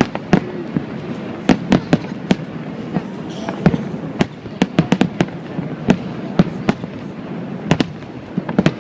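Aerial fireworks bursting in a rapid, irregular series of sharp bangs, sometimes several within a second.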